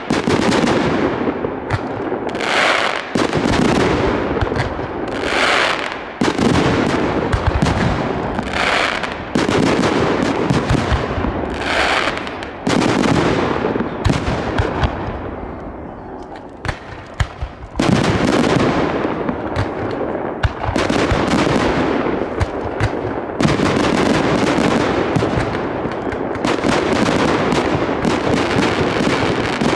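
Aerial fireworks shells launching and bursting in rapid succession, with bangs and crackling. About halfway through there is a short lull, then a sudden, dense barrage of bursts.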